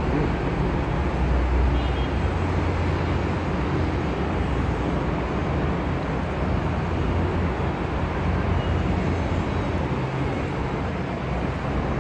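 Steady low rumble and hiss of busy road traffic heard from high above, with no distinct single vehicles standing out.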